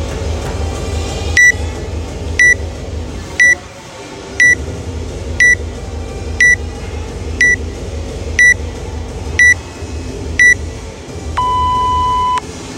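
Workout countdown timer beeping: ten short high beeps about once a second, then one longer, lower beep that marks the start of the workout.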